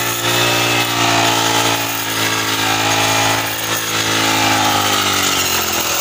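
Engine of a backpack brush cutter fitted with a wheat-reaper blade attachment, running steadily at high speed while cutting standing wheat, with its pitch dipping slightly near the end.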